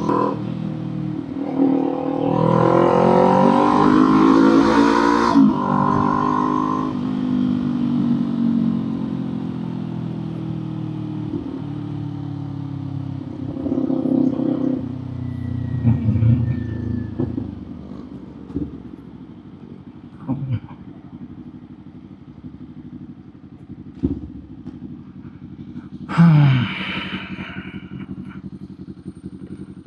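Kawasaki Z400 parallel-twin engine with an aftermarket muffler, accelerating hard with the pitch climbing for a few seconds, then falling steadily as the bike slows. Shorter throttle surges follow around the middle, then quieter running with one brief loud burst near the end.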